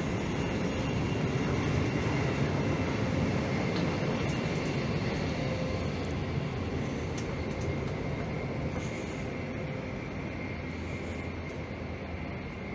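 Passenger train running with a steady rumble and hiss and a faint high tone, easing slightly quieter toward the end.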